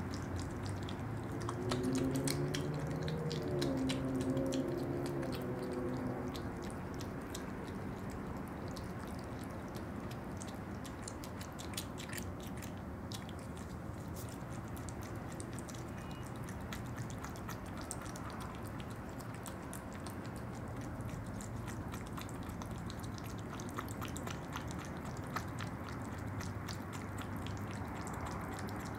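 An opossum eating yogurt, a steady run of small wet clicks and smacks from its mouth. A low hum with a wavering pitch sounds over it for a few seconds near the start.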